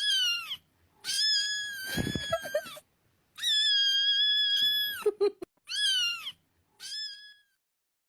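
A cat meowing: five high calls, the second and third long and drawn out, the others short and falling at the end. A low thud comes about two seconds in.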